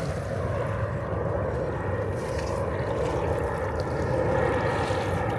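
Jet airliner on its landing approach passing low overhead, a steady engine noise that swells slightly about four seconds in.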